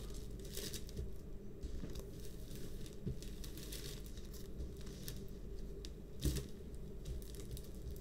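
Thick clear plastic cover film on a diamond-painting canvas crinkling and rustling as hands rub it and press it flat. There is a single sharp knock about six seconds in.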